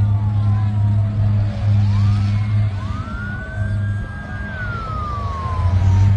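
Several emergency-vehicle sirens wailing at once, their pitches slowly rising and falling and crossing each other, over a steady low drone.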